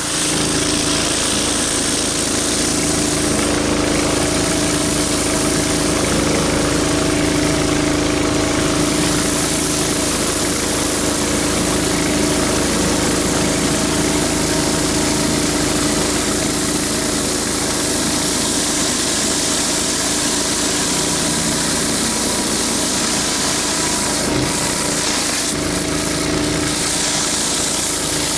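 Pressure washer engine running steadily under load, with the hiss of water jetting from a rotary surface cleaner being worked over a concrete sidewalk.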